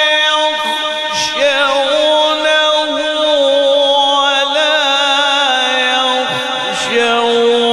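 A male qari reciting the Quran in slow melodic tajwid style into a microphone, drawing out long held notes with wavering, ornamented turns in pitch.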